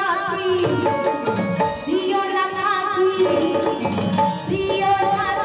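Folk music: a sung melody over a steady drum rhythm.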